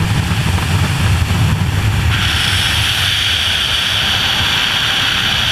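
Wind rushing over a helmet-mounted camera's microphone in wingsuit freefall at around 100 mph: a loud, steady buffeting rumble. About two seconds in, a higher steady hiss joins it.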